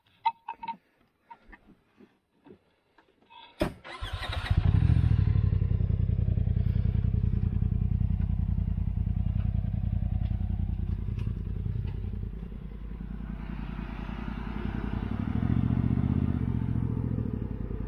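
Polaris RZR Turbo S's turbocharged twin-cylinder engine: a few faint clicks, then a sharp knock about three and a half seconds in and the engine running steadily for the rest of the time, easing off briefly about two-thirds through and picking up again.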